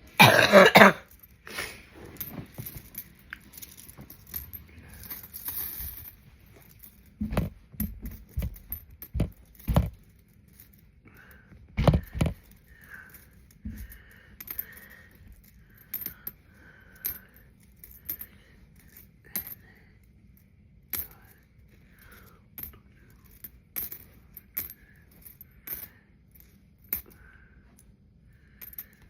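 A person coughs hard about half a second in. After that come pennies clinking and clicking against each other and the table as they are counted by hand, with a few heavier knocks.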